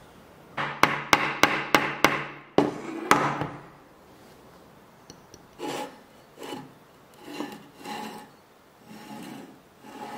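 A socket wrench turning a large threaded screw into a wooden board: a quick run of sharp clicks, about three a second. After a short pause come about five softer rubbing strokes on wood.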